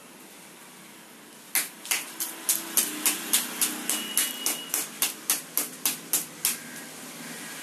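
About eighteen sharp, crisp taps in a steady rhythm, roughly three to four a second, from work at a traditional hand-spun potter's wheel as a clay pot is shaped. They start about a second and a half in and stop about a second before the end, over a faint low hum.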